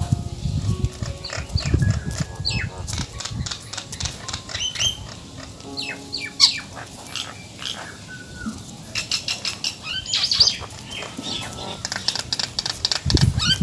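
A palm squirrel gnawing a block of dry instant noodles: rapid crisp crunching and clicking, with short high chirps mixed in. A faint melody sounds at times.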